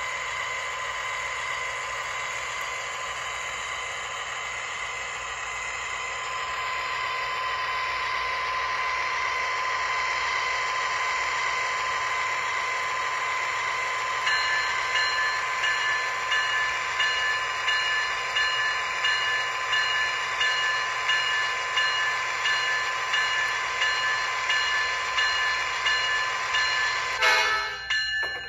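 Sound system of an MTH HO-scale GE ES44AC model diesel locomotive playing a steady diesel engine sound. About halfway through, the locomotive bell starts ringing evenly, about one and a half strokes a second, with a short louder burst near the end.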